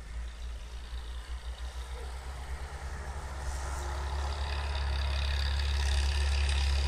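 ARO M461 off-roader's engine running under throttle as the 4x4 slides and spins its wheels through deep snow. It grows louder over the second half as the vehicle comes closer.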